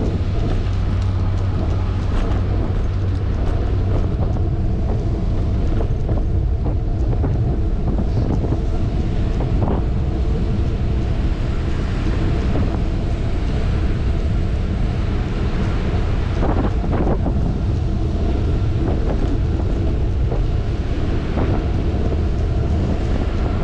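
Wind buffeting an action camera's microphone over the rumble of a bicycle riding on asphalt, steady throughout with a few light knocks from the road. A low hum fades away over the first few seconds.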